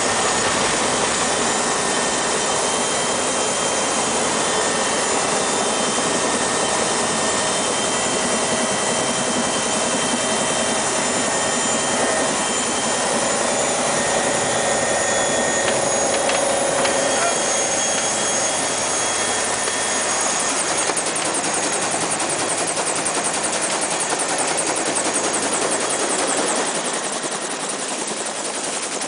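Helicopter turbine engine and main rotor running loud and steady, with a high whine through the descent and landing. In the last part a fast, even chop from the rotor comes through, and the sound eases off slightly near the end.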